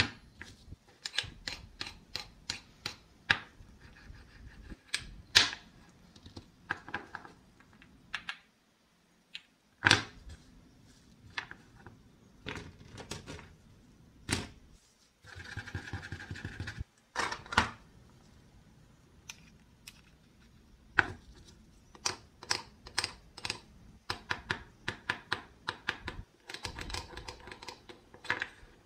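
Wooden toy food pieces and a wooden toy knife being handled on a thin plywood cutting board: a long, irregular series of light clicks and knocks as pieces are set down, picked up and pushed together. Twice, about halfway through and near the end, a stretch of rasping noise lasts a second or two as the knife works on a wooden lemon.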